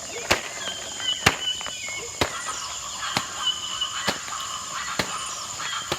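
Homemade rice-and-bean shaker shaken in the hand, giving a short rattle about once a second, over a steady background of chirping.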